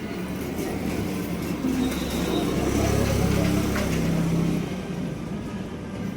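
A low engine hum with a steady pitch that swells to its loudest in the middle and then eases off.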